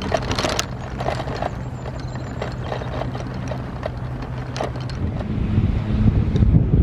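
Footsteps walking on grass, a short irregular click every few tenths of a second, over a steady low hum. About five seconds in, the hum stops and wind rumbles on the microphone.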